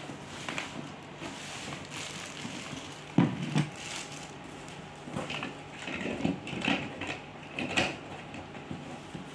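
Packaging and plastic vacuum-cleaner parts being handled during unboxing: irregular knocks and rustling, with the loudest knock about three seconds in and a run of smaller knocks near the end.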